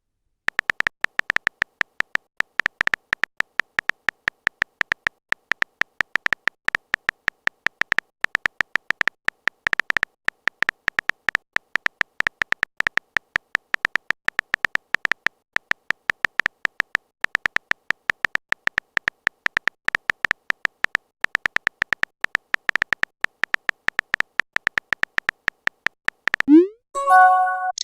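A rapid, irregular stream of short high-pitched clicks from a texting app's keyboard-typing sound effect. Near the end, a short pitched message alert sounds.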